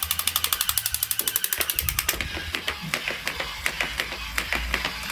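Rapid, even ratchet-like clicking, about ten clicks a second, which stops about two seconds in and gives way to scattered irregular clicks and taps.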